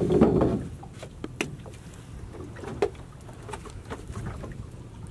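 Fishing net and its brick weight being handled over the side of a wooden boat. A loud noisy burst comes in the first half second, then scattered knocks and clicks follow.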